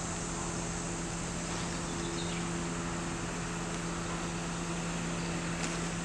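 A steady, unchanging low hum over a background hiss.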